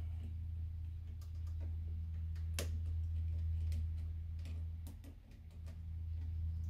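Irregular small metallic clicks and taps of pliers working spring hose clamps onto a rubber fuel hose at an inline fuel filter, the loudest about two and a half seconds in, over a steady low hum.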